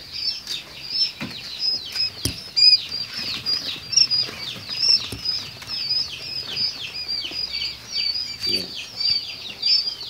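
A brood of young quail chicks peeping nonstop: many short, high, falling chirps overlapping several times a second. A couple of knocks come in the first few seconds.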